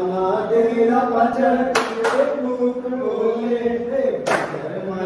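Male voices singing a garba song to the Mother goddess, a steady stepping melody, with sharp hand claps from the garba dance: two in quick succession about two seconds in and another about four seconds in.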